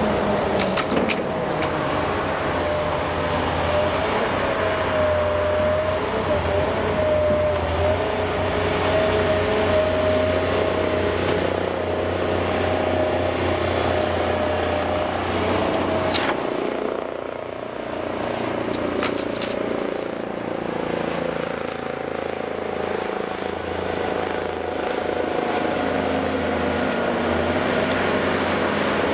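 Heavy diesel machinery working: a Case 1188 wheeled excavator's engine running steadily under load, with a wavering whine over it for the first half. A few sharp knocks come through, the clearest about halfway in.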